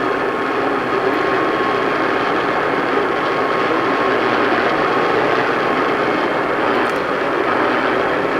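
A loud, steady, even rushing noise with a faint thin tone held underneath it.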